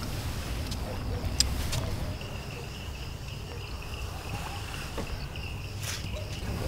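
Crickets chirping steadily over a low outdoor rumble, with a few faint clicks.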